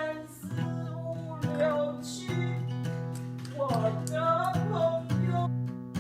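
Music: strummed acoustic guitar with a singing voice carrying the melody in two phrases.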